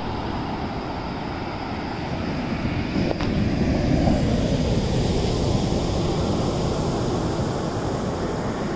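Ocean surf breaking and washing up the beach, a steady rush that swells about three to five seconds in, with wind on the microphone.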